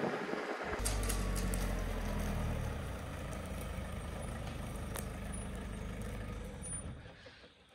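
Flatbed ute's engine running low and steady, a deep even hum, after a brief rush of driving noise at the start; it fades out near the end.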